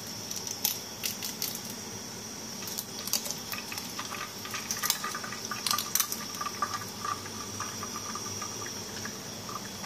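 An egg frying in hot oil in a pan: a steady sizzle with many scattered pops and crackles of spattering oil.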